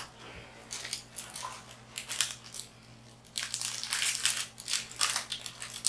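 Crunchy textured slime being squeezed and pressed by hand, giving bursts of crisp crackling and crunching: a short cluster about a second in, another around two seconds, then near-continuous crunching through the second half.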